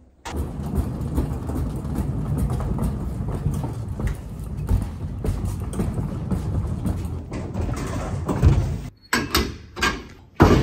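Loaded flatbed trolley rolling along a concrete floor, its wheels rumbling and rattling and the cans and bottles in its plastic boxes jostling. Near the end come a few loud metal clanks as the steel goods-lift gate is handled.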